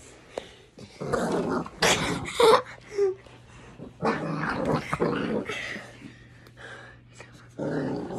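Puppy growling in three rough bursts while playing.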